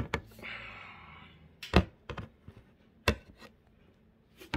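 Handling noises as hands work at the cable connectors inside an opened monitor's metal frame: about half a dozen sharp clicks and knocks, scattered, with a brief rubbing noise about half a second in.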